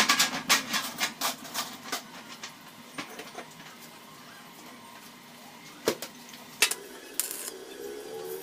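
A quick run of light metallic knocks and clinks as a steel flat bar is set against a steel tank, fading over the first couple of seconds. Near the end come short crackling bursts of a stick-welding arc tacking the bar in place, over a low steady hum.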